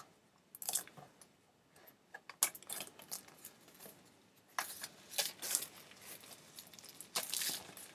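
Plastic Blu-ray case being handled and opened: scattered small clicks and scratchy plastic rustling in a few short spells.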